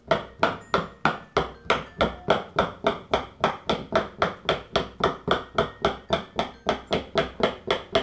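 Bubbles of a thick, heavy silicone GoPop pop-it fidget toy popped one after another with a fingertip from the reversed side: an even run of sharp pops, about four a second.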